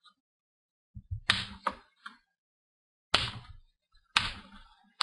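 Plastic screen bezel of an HP Pavilion dm3 laptop being pried off by hand: a handful of sharp snaps and clicks as its retaining clips pop loose, spaced a second or so apart with quiet between.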